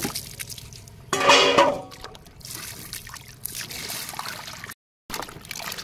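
Water splashing and sloshing in a plastic bucket as potatoes are tipped in and then swished and rubbed by hand to wash them, with a brief louder clatter about a second in.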